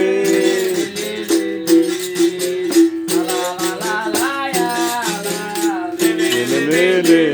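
Berimbau being played: quick rhythmic strikes on its wire over a steady twanging note that bends in pitch, with a shaker rattle along with the strikes.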